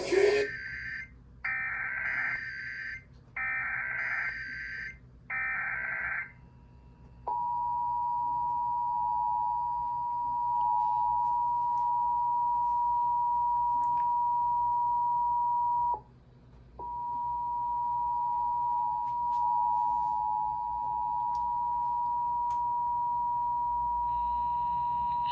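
Emergency Alert System test broadcast: three short bursts of screechy digital header tones, then the steady two-tone attention signal, which drops out for under a second midway and resumes.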